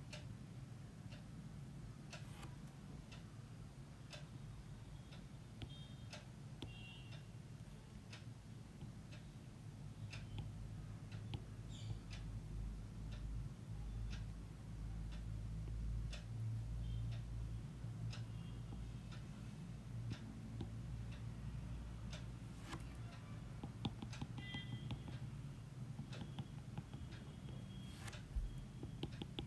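Pen or marker sketching a diagram: faint irregular ticks and taps with a few brief thin squeaks, over a steady low hum.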